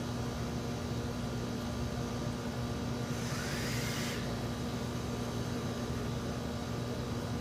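Steady electrical hum from a mains-powered machine or fixture, with an even hiss behind it; a faint rising whine passes about three seconds in.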